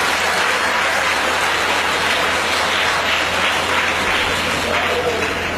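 Audience applauding: a dense, steady clatter of many hands clapping that cuts off suddenly near the end.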